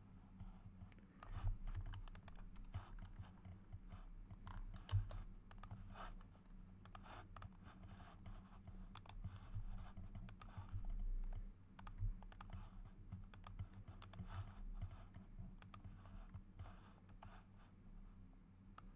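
Irregular clicking of a computer mouse and keyboard during desk work, over a steady low electrical hum.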